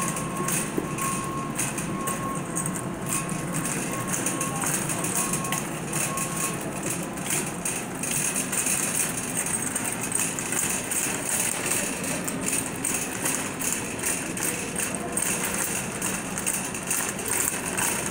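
Shopping cart rolling and rattling across a concrete store floor, a steady noise over the store's background hum. A faint thin whine breaks off about six seconds in.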